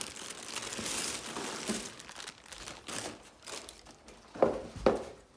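Shoe-box packaging rustling and crinkling as the box is opened and a sneaker is lifted out, with two sharp knocks near the end.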